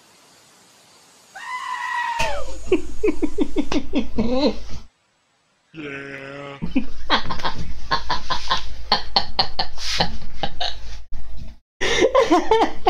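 Goats bleating loudly, several calls: a falling bleat, rapid pulsed calls, a deeper held bleat about six seconds in, then a long run of rapid pulsed sound.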